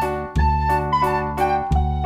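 Background music: a gentle melody of soft keyboard notes over held bass notes.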